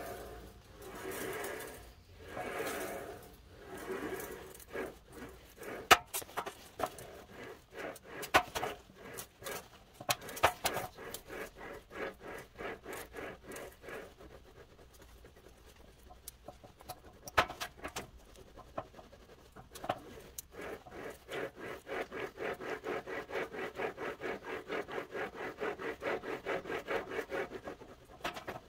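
Sheet steel being rolled back and forth through an English wheel, stretching crown into an 18-gauge panel. The wheels run over the metal in slow swelling passes at first, then come scattered sharp clicks, and near the end a quick, even run of pulses, several a second.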